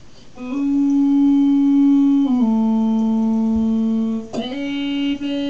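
Keyboard synthesizer tone played through a talk box: a long held note, then a second long note a step lower, and about four seconds in the tone is shaped by the mouth into a sung 'ooh'.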